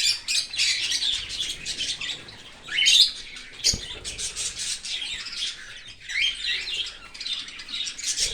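Cockatiels chirping and squawking in a rapid, unbroken run of short calls, with one loud rising call about three seconds in.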